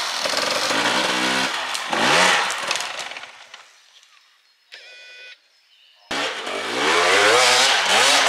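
Enduro motorcycle engine revving up and down as the bike is ridden, its pitch rising and falling. The revving fades out about three seconds in, a short steady tone sounds near five seconds, and loud revving starts again abruptly about six seconds in.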